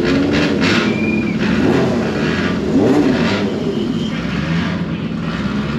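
Tyrrell Formula 1 car's Cosworth DFV V8 running at a lumpy idle, its pitch rising and falling briefly about three seconds in as the throttle is blipped.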